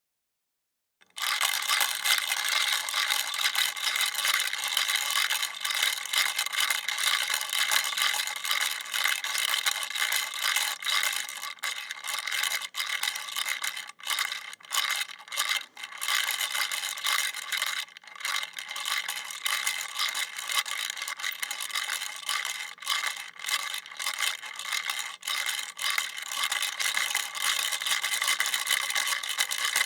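Manual wall-mounted classroom pencil sharpener being cranked, its cutters grinding a pencil with a steady rattling scrape. It starts about a second in, with a few short breaks partway through.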